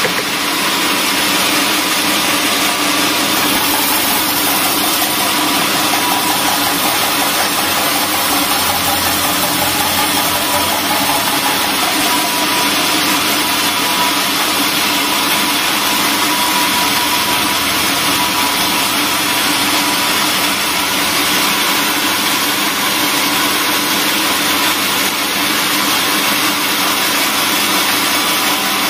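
Large band sawmill running steadily, its blade sawing lengthwise through a squared timber to cut off boards. It makes a loud, even machine noise with a steady hum.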